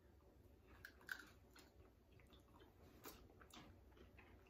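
Faint chewing of chocolate-dipped meringue cookies, with a few soft, short crunches scattered through. The meringue is soft with a little crunch in the middle.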